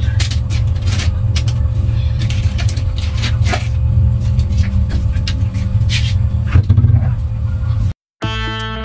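Plastic soft-drink bottles clacking and knocking together as they are gathered by hand, over a steady low rumble and a faint hum. Just before the end the sound cuts off briefly and music begins.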